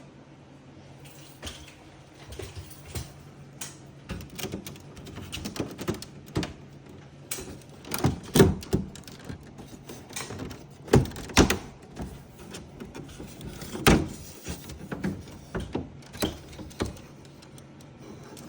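Plastic clicks and knocks as the air conditioner's indoor unit front panel and air filter are handled, a few sharper clunks among them, over a steady low hum.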